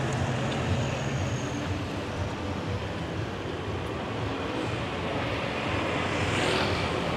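Street traffic: vehicle engines and tyres in a steady rumble, with one vehicle growing louder near the end as it comes close.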